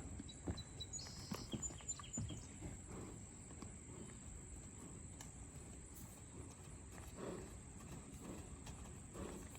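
Faint, irregular hoof thuds and knocks of a horse moving about.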